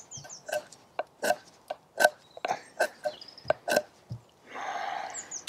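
Stainless bushcraft knife carving hard, knotty dry blackthorn: a string of short, sharp snaps as each stroke bites off a shaving, about one every half second to a second, then a longer scraping stroke near the end. Birds chirp faintly at the start and near the end.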